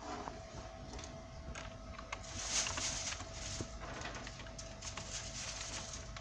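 Irregular light taps and clicks, with a brief rustling hiss about two and a half seconds in, over a faint steady hum.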